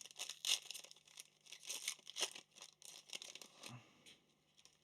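A plastic-foil trading-card pack being torn open and crinkled, in a string of short, uneven rustles as the cards are pulled out.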